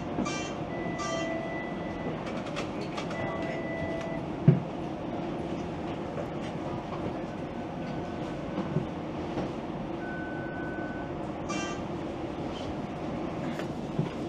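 Ride noise inside a TTC Flexity Outlook low-floor streetcar: a steady running rumble with faint electric whines. There is a sharp knock about four and a half seconds in, and short electronic beeps near the start and again about eleven and a half seconds in.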